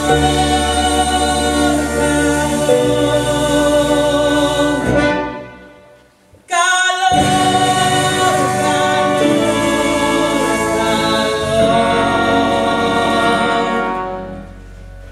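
A choir singing long held chords with a woman's solo voice on top. The singing fades away about five seconds in, drops out briefly, comes back in just after six and a half seconds and fades again near the end.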